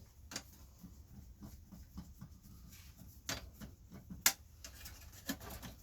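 Screws being worked out of an old cassette deck's chassis with a screwdriver: faint ticking throughout, with a few sharper clicks.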